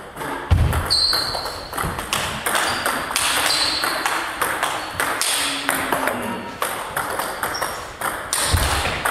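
A table tennis rally: the ball clicks off the rackets and bounces on the table in a quick, irregular rhythm. Short sneaker squeaks on the wooden floor come several times, with a couple of heavy footfalls, one about half a second in and one near the end.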